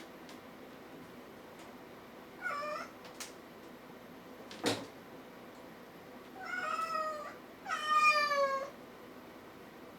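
A kitten meowing three times, the last two close together and the last the loudest, each call dipping slightly in pitch. A sharp tap sounds about halfway through.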